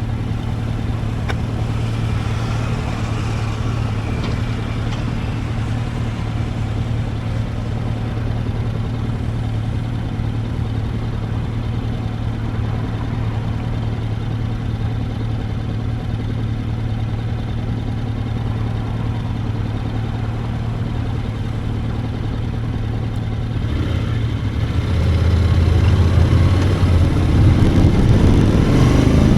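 Motorcycle engine running at a steady note while riding, over a steady rushing noise. About 25 seconds in it gets louder and its note climbs.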